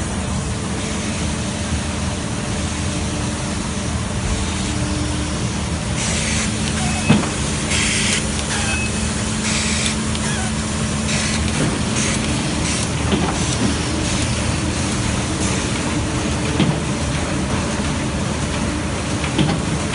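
A five-colour 1991 Miller TP 104-5 sheetfed offset press running, a steady mechanical din with a low hum. Several short bursts of hiss come between about six and ten seconds in, with a few light knocks.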